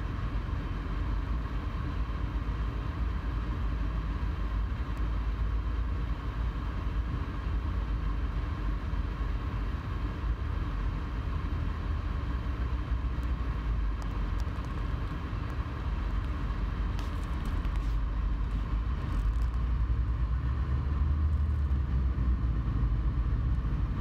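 Car interior noise: a steady low rumble heard from inside the cabin of a car in traffic, growing a little louder near the end as the car moves off.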